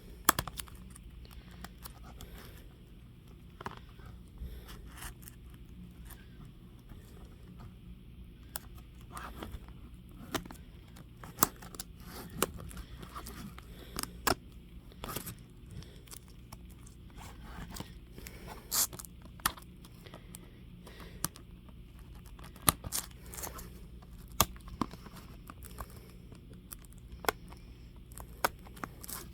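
Plastic shrink-wrap on a CD case being picked, scraped and torn at, with scattered crinkles and sharp clicks at irregular intervals as it resists coming off.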